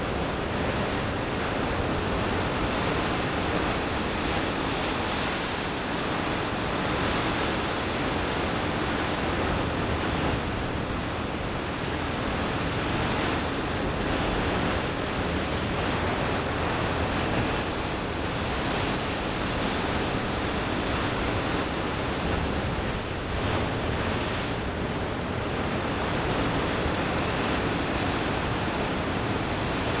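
Ocean surf: a steady, even wash of waves with no single crash standing out.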